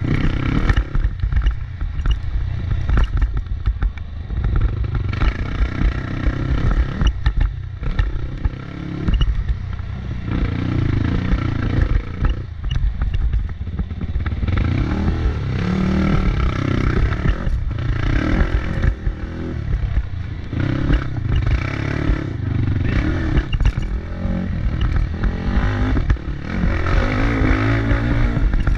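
A motorcycle engine running hard, its revs rising and falling again and again, with rattling and clattering throughout.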